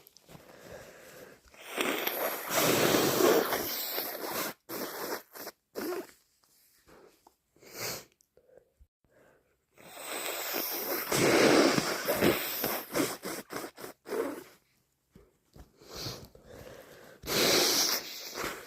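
A person with a bad cold sneezing messily and blowing their nose: three loud bursts, two of them long, with short clicks and small noises between.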